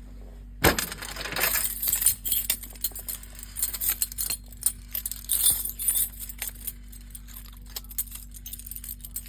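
A bunch of keys jangling and clinking as they are handled, starting with a sharp clack about half a second in. Bursts of metallic jingling follow for several seconds, then fade to scattered clinks.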